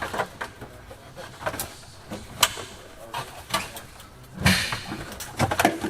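Scattered clicks and knocks of plastic car interior trim being handled and fitted, with a louder rustling thump about four and a half seconds in.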